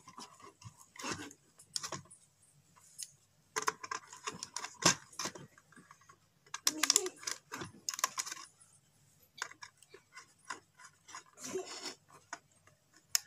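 Irregular small clicks, taps and scrapes of a wire being bent and fitted to switch terminals and a screwdriver working the terminal screws on a switch board, in scattered clusters with short quiet gaps.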